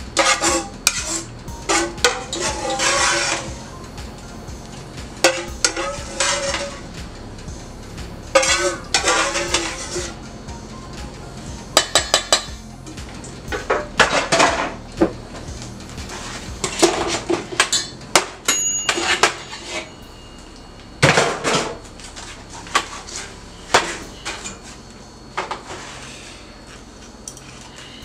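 A metal utensil scraping and clanking against a stainless steel frying pan and mixing bowl in irregular bursts with sharp clinks, as cooked vegetables and fish are scraped from the pan into the bowl.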